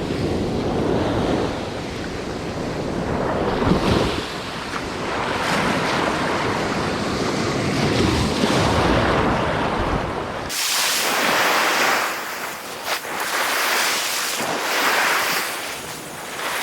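Ocean surf breaking and washing up the beach in swells, with wind buffeting the microphone. About ten seconds in the deep rumble drops away, leaving a brighter hiss of water.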